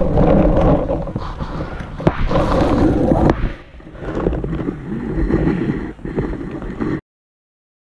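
Wind buffeting the microphone with a low rumble, under distant shouting from paintball players, and a sharp pop about two seconds in. The sound cuts off abruptly near the end.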